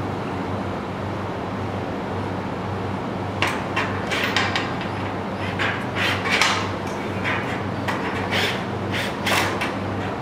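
Steel cabinet parts knocking and clattering in a string of short, irregular hits from about three and a half seconds in, as slotted 19-inch rack uprights are handled and set against the frame of a flat-packed wall cabinet. A steady low hum runs underneath.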